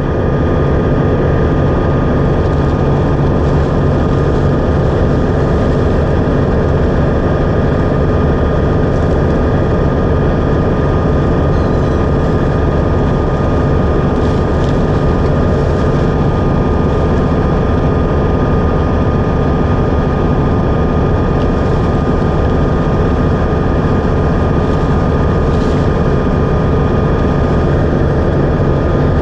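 Wood chipper with a chain-flail debarking drum running steadily at full speed: a loud, unbroken machine drone.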